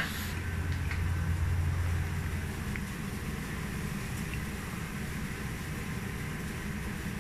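Steady low hum of a kitchen fan running. It weakens slightly about two seconds in, and there are a few faint clicks.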